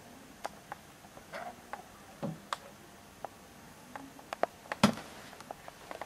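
Seagull rapping its beak on a window pane: a string of irregular sharp taps, the loudest a little under five seconds in. It knocks like this to be fed.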